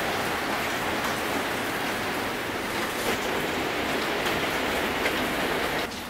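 Rain falling steadily: an even hiss that drops abruptly in level shortly before the end.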